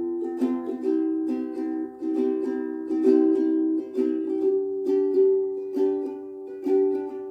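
Soprano ukulele strummed in a steady rhythm of chords, about two strums a second.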